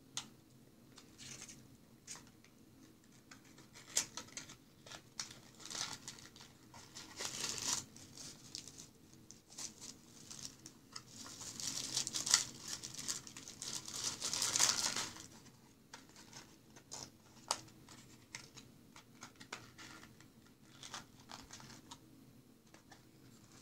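Clear plastic wrapping being crumpled by hand, with scattered small taps and clicks of packaging being handled. The crinkling is densest for a few seconds around the middle.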